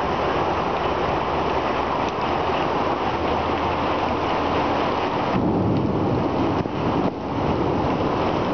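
Heavy rain pouring down onto a flooded street: a dense, steady hiss of rain and rushing water. For a second or so past the middle, the sound turns deeper.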